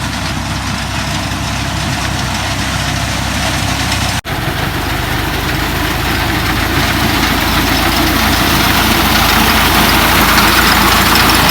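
Wheat reaper's engine running steadily in the field, with a brief break about four seconds in and growing louder toward the end.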